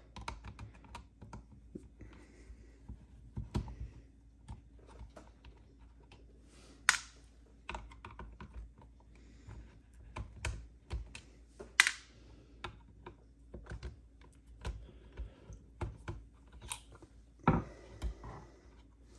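Phillips screwdriver working screws out of the plastic housing of an 80 Series Land Cruiser climate control unit: irregular light clicks and ticks of metal on plastic, with a few sharper clacks spread through.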